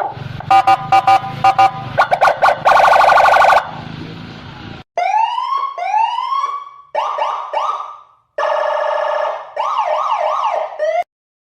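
Indonesian police escort electronic siren cycling through its tones. It opens with a stuttering beeping pattern and a fast buzzing tone. After a short break come slow swooping wails, quicker yelps, a steady multi-tone blare and a fast yelp, which cuts off suddenly near the end.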